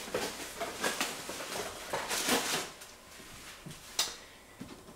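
Cardboard and plastic packaging being handled and moved about: irregular rustling and light knocks, quieter in the second half, with one sharp click about four seconds in.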